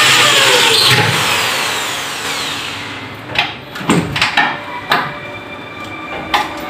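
Power drill running, then cutting off about a second in and winding down with a falling whine, followed by several sharp clicks and knocks on the aluminium cabinet frame.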